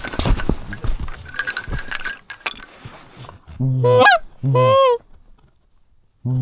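Goose honking: two loud honks a little over three and a half seconds in, each starting low and breaking upward in pitch, after a few seconds of rustling and small knocks.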